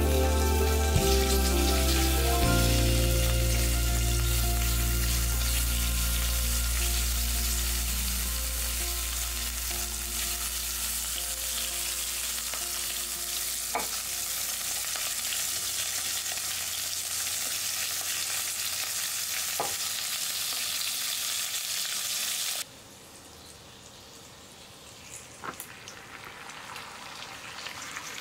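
Pork belly and sausage sizzling as they fry in sesame oil in a ceramic clay pot, a steady hiss. About 22 seconds in the sizzle suddenly drops to a quieter level, and a few light clicks sound now and then.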